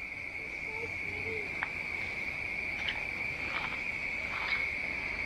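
Continuous high-pitched insect chorus, a steady unbroken trill, with a few faint clicks and a faint short low call about a second in.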